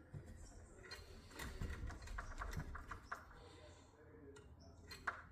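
Manual screwdriver driving a screw into a door latch, with a run of small clicks and scrapes between about one and three seconds in and a couple of sharper clicks near the end.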